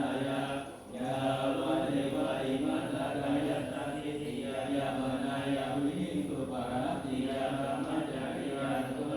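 Buddhist chanting in Pali by men's voices in unison: a low, steady, monotone recitation that pauses briefly for breath about a second in.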